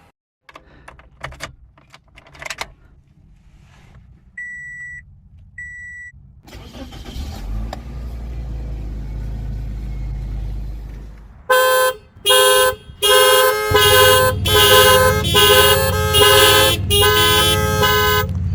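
Two short electronic beeps, then a low rumble for a few seconds, then a car horn honking in a string of repeated blasts, short at first and then longer, through the last seven seconds.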